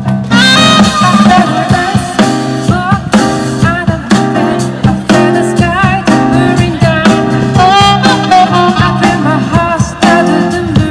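Live band music from a keyboard, a drum kit and a saxophone, with a wavering lead melody over a steady drum beat.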